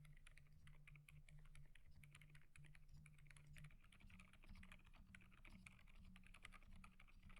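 Typing on a Gamakay TK75 V2 mechanical keyboard fitted with silent switches: a quick, continuous run of faint, soft keystrokes, several a second.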